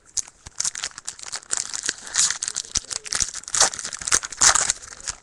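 Trading-card pack wrapper being torn open and crinkled: a dense run of crackling with sharp clicks, loudest in a few crinkles in the second half.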